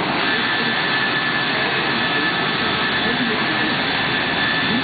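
Biesse Skipper 100 CNC panel machine running as it works a board, a loud steady machine noise. A steady high whine sets in just after the start and holds.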